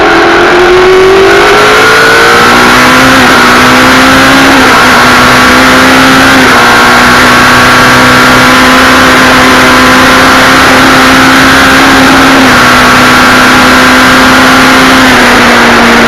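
Indy Lights open-wheel race car engine heard onboard at racing speed. The pitch climbs over the first couple of seconds, then holds high with a few small steps and eases slightly near the end. Loud wind and road rush runs under it.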